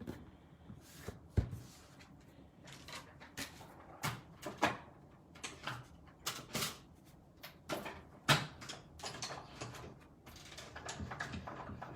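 Irregular taps, clicks and rustles of hands handling papercraft materials on a work surface, with two sharper knocks, one about a second and a half in and a louder one about eight seconds in.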